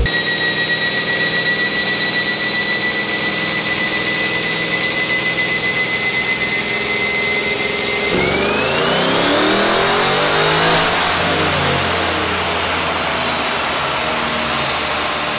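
Six-speed manual Chevrolet Camaro's V8 on a chassis dyno during a tuning pull. It runs steadily with a high whine for about eight seconds, then the revs climb hard for about two and a half seconds, the loudest part, and afterwards slowly wind down as the car coasts.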